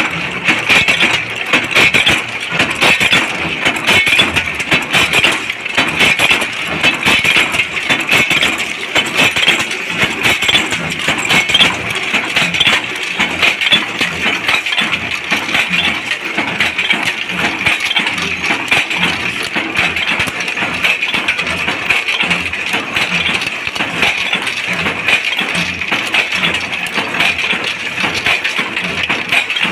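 Steel bolts clinking against each other and against metal, a dense, continuous jingling over the steady running noise of factory machinery.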